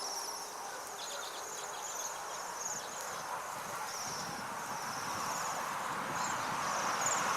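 A flock of small wintering songbirds calling with many short, high, buzzy chirps, repeated every half second or so, over a steady rushing background that swells near the end.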